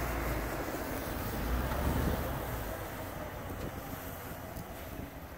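Wind buffeting the microphone over a steady low rumble that is likely the flatbed truck's diesel engine idling. The heaviest buffeting dies away about halfway through.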